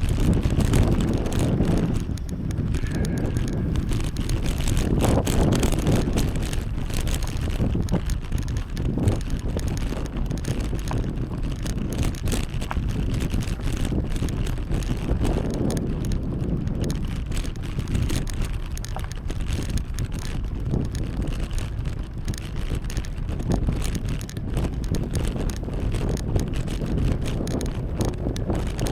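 Wind rushing over the microphone during a bicycle ride, a rumbling, gusting noise mixed with tyre and road noise, with scattered light clicks from the bike.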